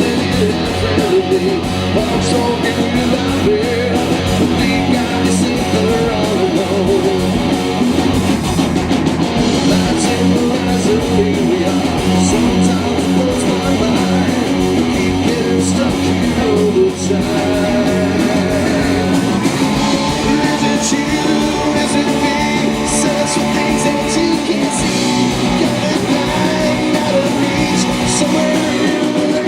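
Live rock band playing loud, with electric guitars to the fore.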